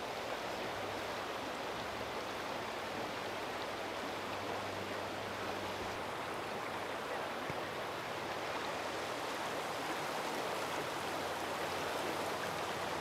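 Flood-swollen West River rushing steadily, running high with a water release from the dam.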